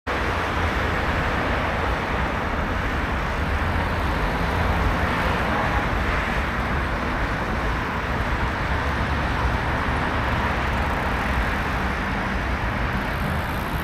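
Steady road and traffic noise with a low rumble.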